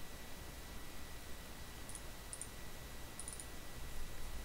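A few computer mouse-button clicks, in quick pairs about two and three seconds in, over steady microphone hiss with a faint steady high tone.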